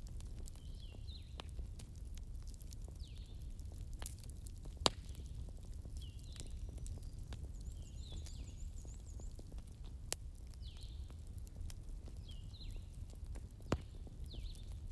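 Wooden barbecue sticks being handled and laid on a wooden board, giving a few sharp clicks, the loudest about five seconds in and again near the end. Under them runs a low steady hum, and a bird chirps over and over in the background.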